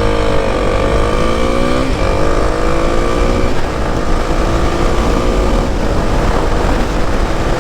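Kawasaki KLX300's single-cylinder four-stroke engine accelerating at full throttle, its pitch climbing through each gear and dropping at the upshifts, twice in the first few seconds. Wind rush over the helmet grows as speed builds and partly covers the engine later on.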